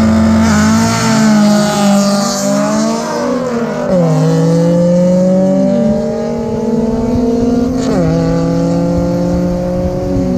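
Two drag-race cars, a Nissan and a Toyota Sprinter, accelerating hard down the strip. Their engine notes climb through each gear and drop sharply at the upshifts about four and eight seconds in.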